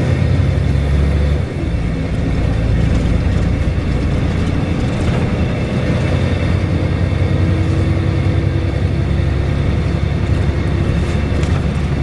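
Volvo B7RLE single-deck bus's six-cylinder diesel engine running as the bus drives along, heard from inside the passenger cabin: a steady low drone with a faint high whine over it. The drone dips briefly about a second and a half in.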